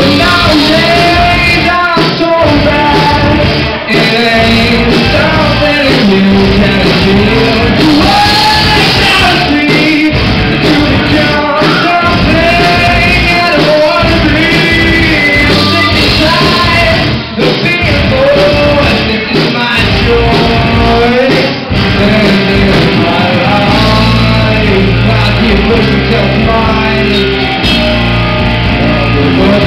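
Rock band playing live: a male voice sings over loud electric guitars and drums.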